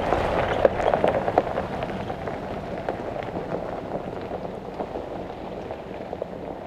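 Jeep Wrangler Rubicon's tyres crunching on a gravel road as it drives away, the crackle fading steadily as it recedes.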